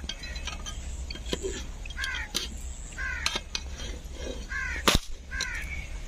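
A scoped break-barrel air rifle fires once, a single sharp crack about five seconds in. A crow caws about four times around it.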